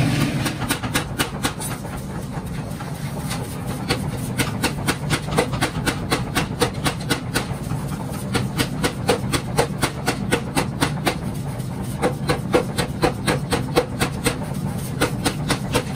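A 1950 power hammer pounding a red-hot steel billet for a 10 kg sledgehammer head, its ram striking in a fast, even rhythm of about four blows a second, with a steady low hum underneath.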